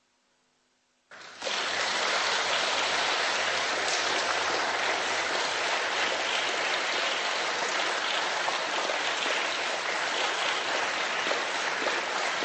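After about a second of near silence, an audience breaks into steady applause.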